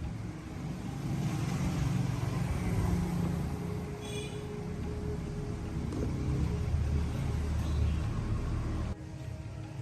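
A machine running steadily, heaviest in the low end, with a brief high squeal about four seconds in; it cuts off abruptly shortly before the end.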